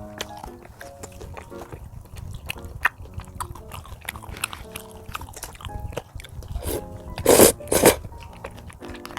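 Close-miked eating: chewing and crunching of food with many small clicks, and two loud crunches close together near the end, over light background music.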